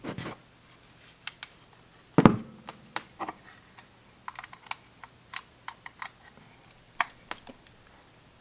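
Irregular light clicks and taps of hard plastic parts being handled, with one louder knock about two seconds in.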